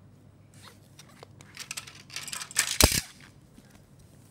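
Plastic LEGO Duplo train-track pieces handled and set down on a tiled floor: scattered light clicks and clatter, with a flurry of knocks in the middle and one louder knock near the end.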